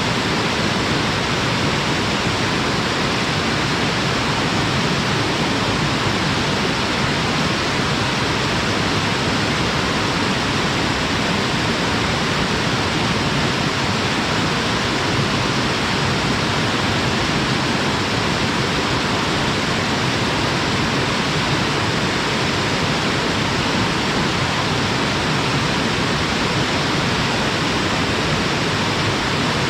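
Waterfall pouring into its pool: a steady, unchanging rush of falling water.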